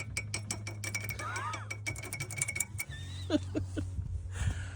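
Rapid, even mechanical clicking, about eight clicks a second, over a steady hum; the clicking stops a little under three seconds in. A few short squeaky chirps come in the middle and after the clicking stops.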